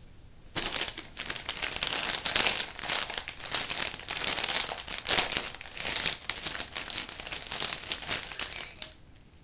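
Plastic packaging crinkling and crackling steadily as it is handled and pulled open. It starts about half a second in and stops shortly before the end.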